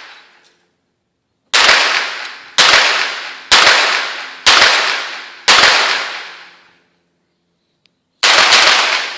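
Pistol firing blank rounds: five shots about a second apart, then a sixth after a pause of a couple of seconds, each shot echoing away over about a second.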